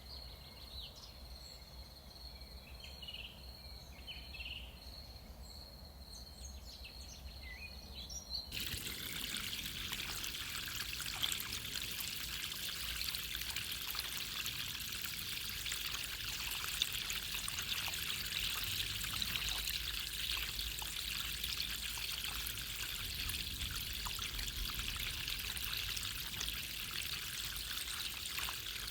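A steady high insect drone with a few short bird chirps, cut off abruptly about a third of the way in by steady running water, splashing and trickling.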